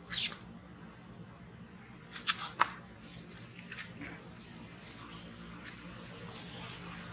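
Newborn long-tailed macaque squeaking in short, high-pitched squeaks. There is a loud one just after the start and a cluster of three sharper ones about two to two and a half seconds in, with fainter rising chirps repeating every half-second or so.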